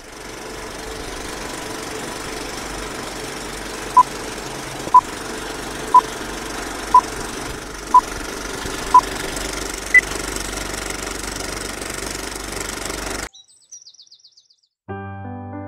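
Film-leader countdown sound effect: the steady whirr and crackle of an old film projector with a short beep once a second, six times, then a single higher beep. The projector noise cuts off suddenly, and piano music begins near the end.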